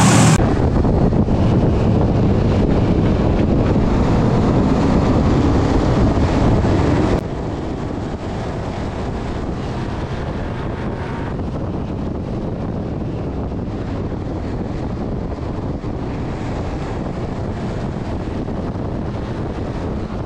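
Onboard sound of a short-track race truck running at speed: a steady engine drone buried under heavy wind buffeting on the camera microphone. The level drops suddenly about seven seconds in, then holds steady.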